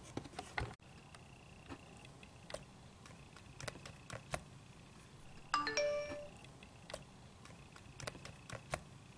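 A short chime of a few notes stepping down in pitch, about five and a half seconds in, amid scattered faint light taps and clicks.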